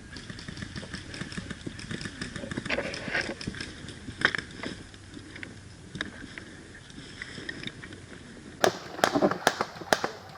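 Crackling and rustling with scattered clicks, then near the end a quick string of sharp cracks, three or four a second: an airsoft gun firing.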